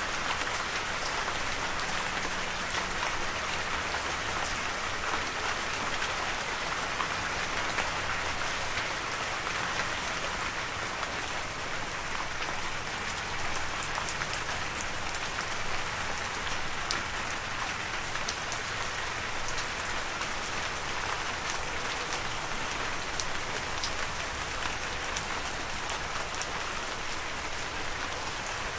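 Steady rain, an even hiss dotted with many small raindrop ticks.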